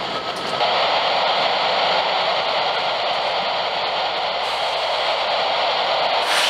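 Freight train's tank cars rolling past close by, a steady rushing noise of steel wheels on the rails that grows louder about half a second in.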